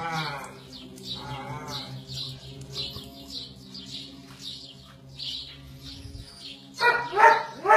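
A dog whining: a falling cry at the start and a wavering, quavering cry about a second and a half in, with louder cries near the end. High chirps repeat in the background over a steady low hum.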